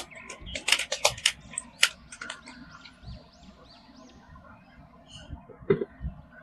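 Clicks, knocks and rustling from a plastic action-figure toy being handled: a quick run of sharp clicks in the first two seconds, then softer scraping, and one more click near the end.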